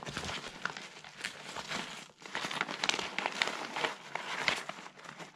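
Crinkling and rustling of a deflated Onyx inflatable life jacket's bladder as it is folded flat by hand, in irregular bursts with a brief lull about two seconds in.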